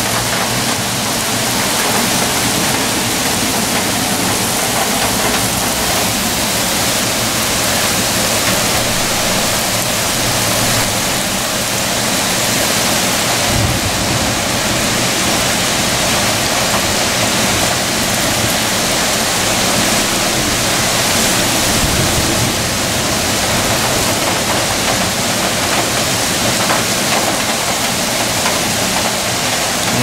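Heavy rain mixed with hail falling in a downpour, a steady even hiss.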